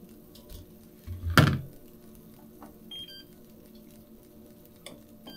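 A single sharp knock about a second and a half in, the loudest sound here, over a faint steady low hum, with a few brief high-pitched beeps about three seconds in.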